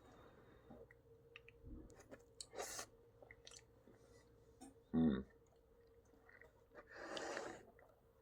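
Faint chewing of yakisoba noodles, with small wet mouth clicks and a brief hummed voice sound about five seconds in.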